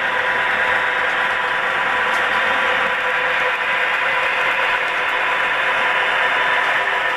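HO scale model train running on the layout track: a steady mechanical whir of the locomotive's motor and gears with the rattle of the wheels on the rails, holding an even level throughout.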